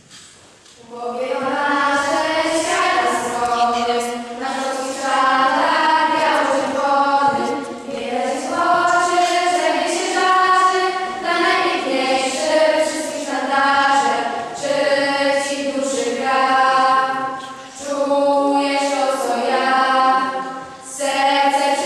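A choir of girls singing a song together, beginning about a second in, in sustained phrases with short breaks between them.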